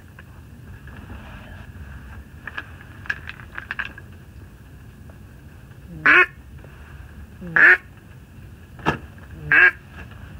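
Duck call blown by a hunter to call in a duck: a few soft, quick quacks, then three loud, drawn-out quacks about a second and a half apart. A single sharp crack falls between the last two quacks.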